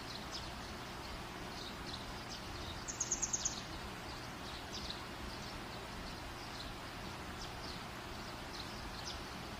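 Small birds chirping now and then, with a quick run of about six high chirps about three seconds in, over a steady background hiss of outdoor ambience.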